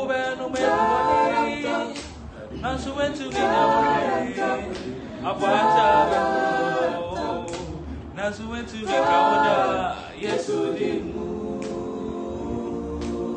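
A small mixed vocal group of four men and one woman singing a gospel song a cappella in Twi, with no instruments, in phrases separated by short breaths. About ten seconds in, the voices settle into a long held chord.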